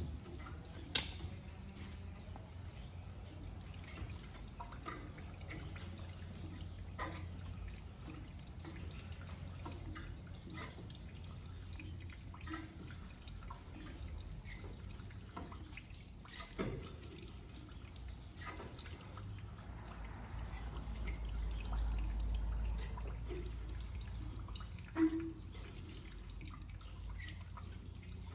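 Water dripping and trickling, with scattered small clicks and knocks over a steady low hum. A deeper rumble swells for a few seconds past the middle, and a short knock follows.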